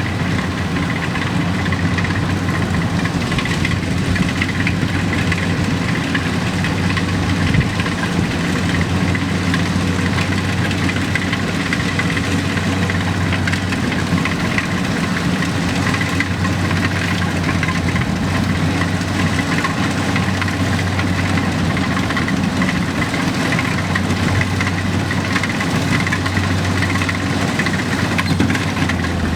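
An engine running steadily at a constant speed with an even low hum.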